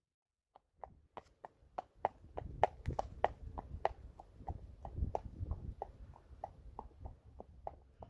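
Friesian horse's hooves clip-clopping at a walk on an asphalt road, an even beat of about three strikes a second, starting just under a second in and loudest a few seconds in before easing off a little.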